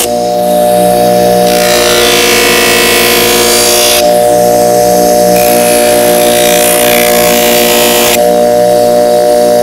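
Electric bench buffer running with a steady whine while a hoof knife blade is held against the spinning wheel to sharpen it, giving a grinding hiss. The hiss changes abruptly about a second and a half in, again at about four seconds and near eight seconds, as the blade is repositioned.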